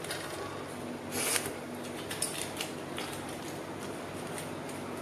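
Close-up eating sounds: a person eating by hand from a plate, with soft chewing, small clicks and a short rustle-like hiss about a second in.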